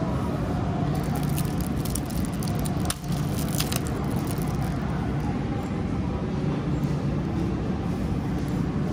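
Plastic shrink-wrap on a packaged coconut crackling in the hands for a few seconds about a second in, over a steady low rumble.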